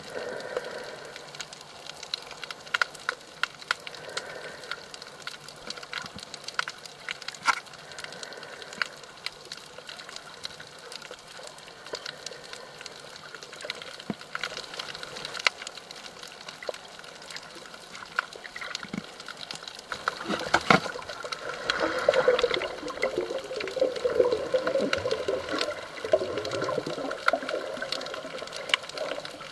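Underwater water noise picked up by a snorkeler's camera: a steady wash with scattered sharp clicks, and a louder gurgling, bubbling stretch about two-thirds of the way through.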